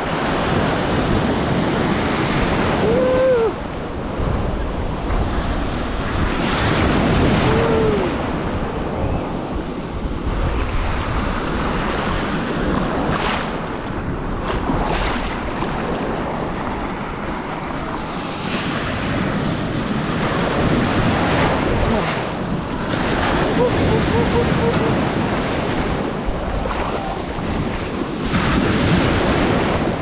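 Ocean surf breaking and washing around the camera at water level, rising and falling in surges as each wave comes through, with wind buffeting the microphone.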